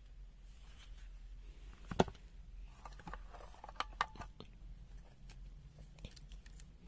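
Handling noises from a multimeter and its accessories: one sharp knock about two seconds in, then a cluster of light clicks and taps a second or so later.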